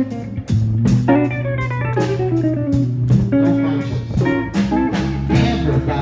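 A band playing an instrumental passage: electric guitar lines over a bass line and a steady drum beat with hits a few times a second.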